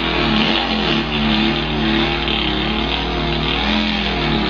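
A man imitating a vehicle engine with his mouth: a continuous buzzing engine drone whose pitch wavers gently up and down, like a motor being revved.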